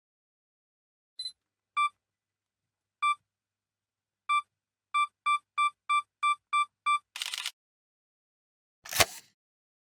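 Camera self-timer countdown: a few electronic beeps about a second and a quarter apart, then quickening to about three a second, ending in the shutter release. A second sharp shutter click follows near the end.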